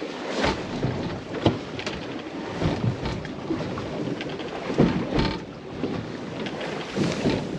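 Small boat at sea: water lapping and slapping irregularly against the hull, with wind on the microphone.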